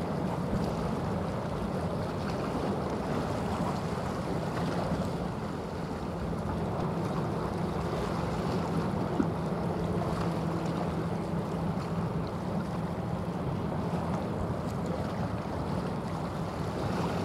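Steady low drone of a large bulk carrier's diesel engine passing close by, mixed with wind noise on the microphone and the wash of water.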